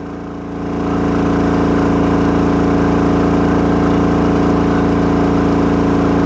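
GENMAX GM9000iE inverter generator's engine running hard under a heavy load of about 7,600 watts, with its overload light on. The engine note rises in level about a second in, then holds steady.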